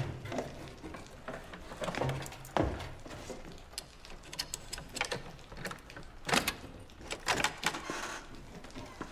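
Irregular knocks, clicks and rustles of people moving and handling a door in a small room, with sharper knocks about two and a half, six and a half and seven and a half seconds in.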